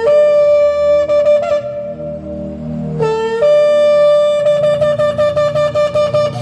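Shofar (ram's horn) blasts: a long note held steady, then about three seconds in a second blast that slides up from a lower note, holds, and breaks into a rapid run of short staccato notes.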